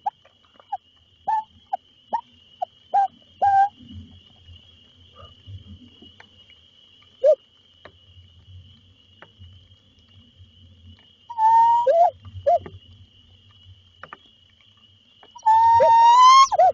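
Owl calls: about eight short squeaky calls in the first few seconds, a single one around seven seconds in, then a longer call around twelve seconds in and a loud, drawn-out rising call near the end. A steady high whine runs underneath.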